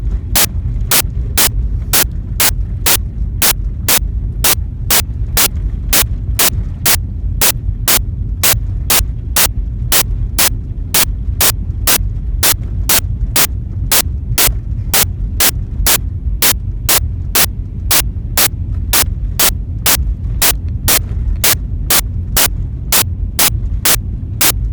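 Sharp, evenly spaced clicking, a little over two clicks a second, over a steady low rumble.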